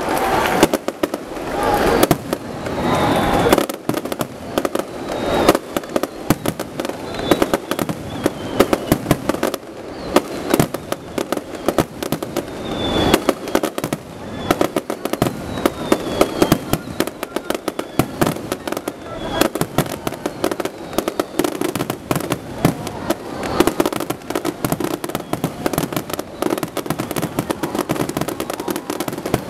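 A fireworks finale: aerial shells bursting in a fast, unbroken barrage, with many sharp bangs and crackling overlapping one another.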